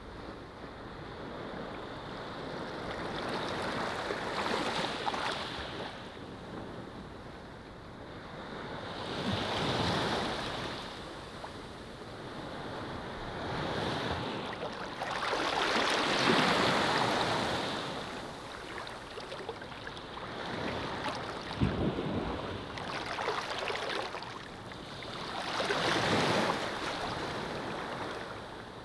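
Gentle surf on a sandy beach: small waves wash in and draw back in slow swells every four to six seconds, with a soft hiss in between. The largest wash comes about halfway through.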